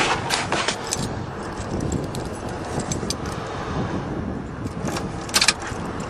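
GMC truck's 400 small-block V8 running, with the newly fitted starter having got it going. Sharp clicks and jingles sound over the engine: a few near the start and the loudest cluster about five and a half seconds in.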